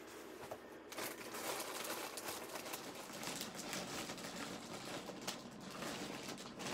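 Fabric rustling as a dress is handled, folded and laid onto a pile of clothes, starting about a second in.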